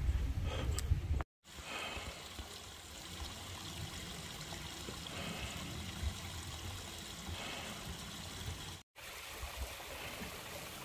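Steady rushing of a small mountain stream, broken twice by brief dropouts. It opens with about a second of loud low rumble.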